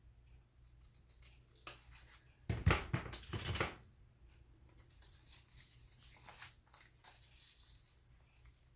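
Paper and craft tools handled on a work table, with a burst of rustling and knocks a few seconds in and a single click later.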